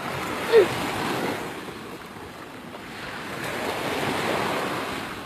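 Sea waves washing onto a beach, swelling twice, with wind buffeting the microphone. A short falling note about half a second in stands out above the surf.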